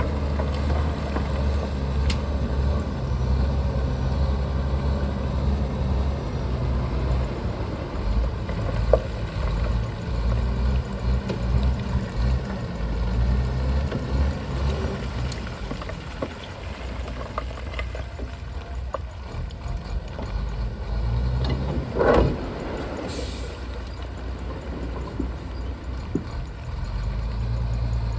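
Shantui bulldozer's diesel engine running steadily, easing off and quieter through the middle and picking up again near the end, with scattered clanks and one louder knock about two-thirds of the way through.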